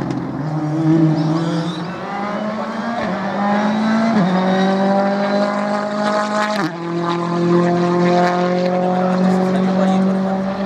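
Ford Fiesta R5 rally car's engine pulling hard around the circuit. Its pitch climbs, drops sharply at an upshift about four seconds in, climbs again and drops at a second upshift two and a half seconds later.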